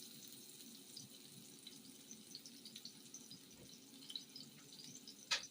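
Mushrooms frying in hot oil in a pan, a faint steady sizzle with scattered small crackles and spits. A single sharp click comes near the end.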